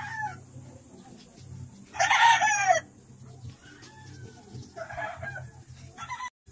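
A rooster crowing once, loud and short, about two seconds in, with fainter calls a few seconds later.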